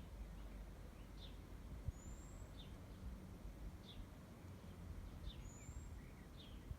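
Small birds chirping in short, falling calls about once a second, with a thin rising high whistle twice, over a low outdoor rumble. A soft thump about two seconds in.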